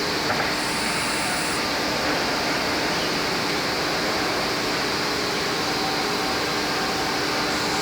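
IMEAS LCSI 190 two-head wide-belt panel sanding machine running steadily, an even rushing noise with a constant low hum. A brief faint high whistle comes in about half a second in and stops after about a second.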